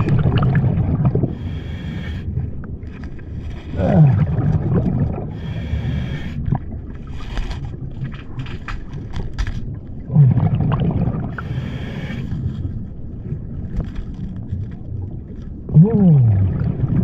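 Scuba diver breathing through a regulator underwater: a hiss on each inhalation and a bubbling rumble on each exhalation, the exhalations coming about every four to six seconds, each starting with a low tone sliding downward. Scattered clicks around the middle.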